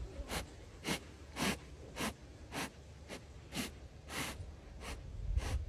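Jaguar sniffing at a person's hand: about ten short, sharp sniffs, roughly two a second, as he takes in a scent that leads into his flehmen response.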